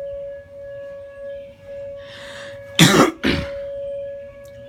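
Tornado warning siren sounding one steady tone during its monthly test, its loudness swelling and fading. Two loud coughs about three seconds in.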